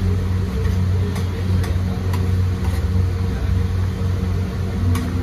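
Metal spatula stirring rice on a large iron tawa, with a few sharp clicks as it strikes the pan. Underneath is a steady low mechanical hum, the loudest sound throughout.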